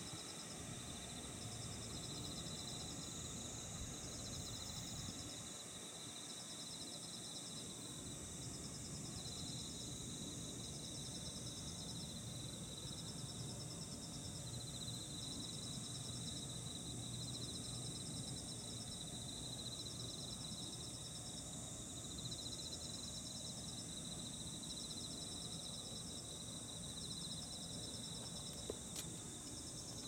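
Insects calling: a steady high-pitched tone with short pulsed trills repeating every second or so, over a low background rumble.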